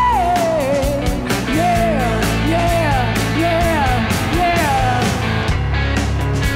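Live rock band playing loud, with drums, bass and electric guitar. A singer's long held note trails off at the start, then a lead melody of sliding notes runs over the band.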